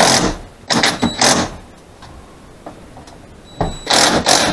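Cordless drill running in short bursts, driving screws into an overhead sliding barn-door track: one burst at the start, two quick ones about a second in, and a longer one near the end.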